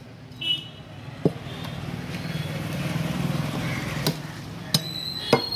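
Heavy butcher's cleaver chopping goat trotters on a wooden log block: a sharp chop about a second in and three more in quick succession near the end. Under it, a vehicle engine hums, swelling and fading in the middle.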